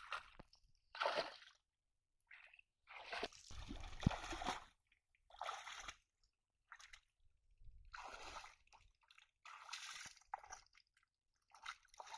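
Shallow, muddy water sloshing and splashing as a person wades through it and works it with their hands, in a string of short bursts with quiet gaps between.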